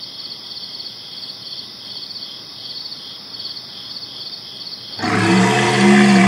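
Crickets chirping in a steady pulsing trill. About five seconds in, loud music starts over them.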